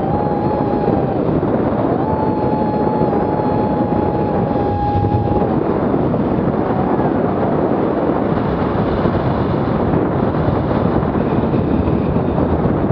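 Strong rushing wind on the microphone of a paraglider's camera during steep spiral turns, with a steady high whistle over the first few seconds.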